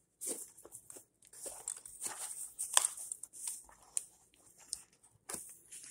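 Light, scattered rustles, scrapes and taps of a small cardboard toy box being handled while a plush toy is worked out of it, with short quiet gaps between.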